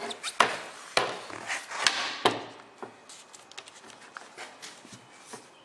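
Hands working rubber weatherstrip into the channel of a metal window sash on a plywood bench: rubbing with several sharp knocks in the first couple of seconds, then only faint small ticks.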